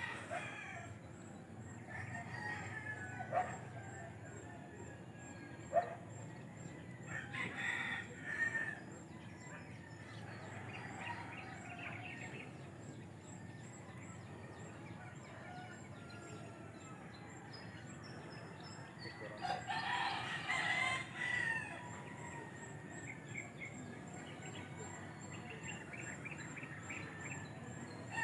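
A faint rooster crowing, one long call about two-thirds of the way through, over light bird chirps and quiet outdoor ambience, with two sharp clicks in the first six seconds.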